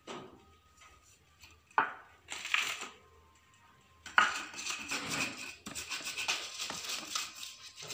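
Round stone pestle grinding fresh spices (chilli, shallot, turmeric, garlic, kencur) on a flat stone grinding slab. A couple of knocks and scrapes come first, then from about four seconds in a steady, rough stone-on-stone rubbing, stroke after stroke.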